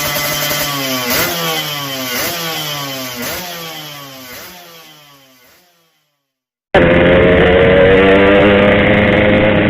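Yamaha RX-King two-stroke single-cylinder motorcycle engine blipped repeatedly, about once a second, the revs dropping away after each blip, and the sound fades out to silence about halfway through. After a short gap it cuts back in loud, running at a steady pace under way.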